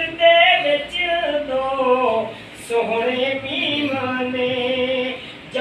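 A man singing a Punjabi naat unaccompanied, in long held, wavering melodic lines. He breaks briefly for breath about two seconds in and again near the end.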